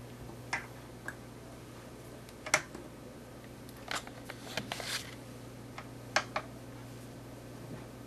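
Scattered light clicks and taps from handling, about a dozen at irregular intervals with the loudest about two and a half seconds in, over a steady low hum.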